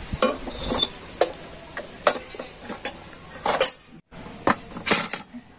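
Steel plate and small steel bowls lifted out of a hot kadai with metal tongs and set down: a string of sharp metal clinks and clanks, some ringing briefly.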